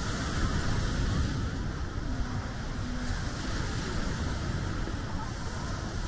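Steady seaside ambience: sea surf washing, with wind rumbling on the microphone.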